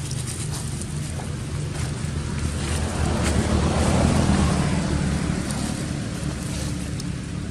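A motor vehicle's engine droning, growing louder about three to four seconds in and then fading as it passes.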